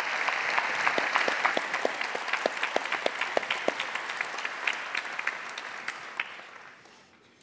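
Audience applauding, many hands clapping at once. It is fullest early on and dies away over the last couple of seconds.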